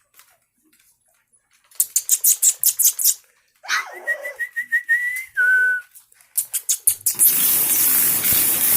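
A person whistling to call puppies to their food: a quick run of clicking calls, then a warbling whistled note held for over a second and a shorter, lower note. About two-thirds of the way through, a loud rustling hiss starts and carries on to the end.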